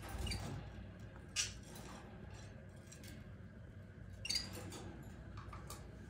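Light clicks and taps of small cage birds' beaks pecking at a soft egg-food mix in a plastic feeder. A few sharper taps stand out: one near the start, one about a second and a half in and one about four seconds in.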